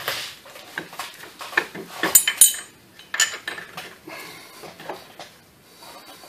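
Metal clanks, knocks and scrapes as a replacement A/C compressor is shifted into its mounting bracket on the engine, with a short run of bright ringing metal hits about two seconds in.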